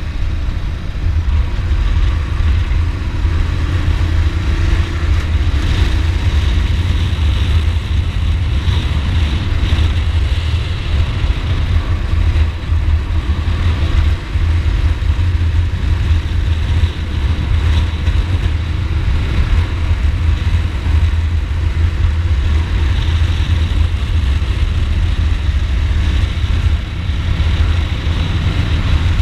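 Ducati Multistrada motorcycle being ridden at a steady pace: a continuous loud, low rumble of engine and rushing air, with no clear revs up or down.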